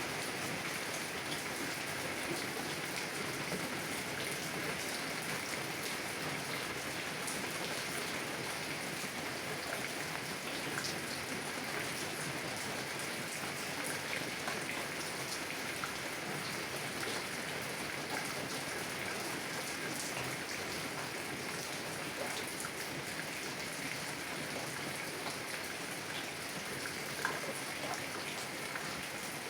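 Heavy rain falling on a car window, a steady hiss dotted with the ticks of single drops, one sharper drop hit near the end.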